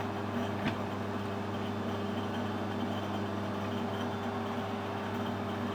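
Metal lathe running with a steady hum while turning a small brass fitting, with one small click about a second in.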